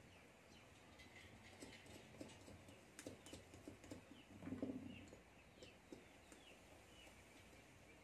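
Faint clicks and small knocks of metal parts as a new bush is pressed into a table fan motor's end cover with a rod, with a louder cluster of knocks about halfway through.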